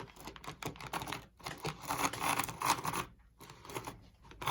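Vintage AHM four-wheel diesel switcher model running on its track, its small motor and gears giving an uneven, rattly clicking that breaks off briefly a couple of times.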